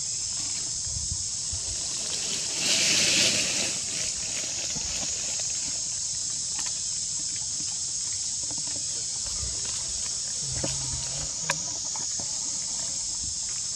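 A steady, high-pitched drone of insects (a cricket or cicada chorus) in tropical forest. About three seconds in, a louder rustling hiss swells for a second or so, and a single sharp click comes near the end.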